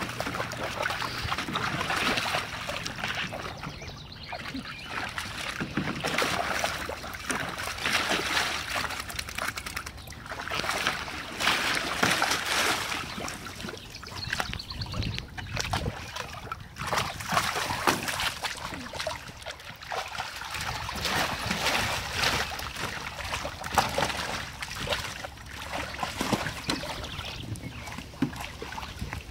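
Water splashing and sloshing in irregular bouts as two dogs wade and paw about in a shallow plastic kiddie pool.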